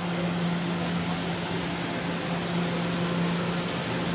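Stationary R211 subway car's air-conditioning and on-board equipment humming steadily, an even rush of air with a constant low tone.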